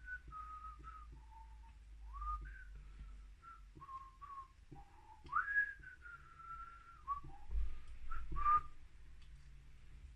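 A person whistling a slow tune: single clear notes that step and glide up and down, some held for about a second. A few faint clicks sound underneath.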